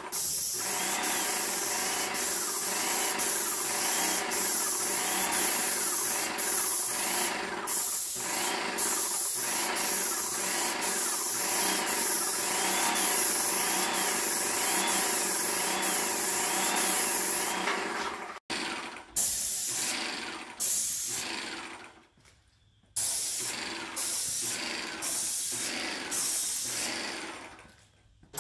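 Airless paint sprayer in use. The pump hums steadily, with a whine that rises and falls about once a second, under the hiss of paint spraying from the gun. After about eighteen seconds the spraying turns into short bursts with pauses between them.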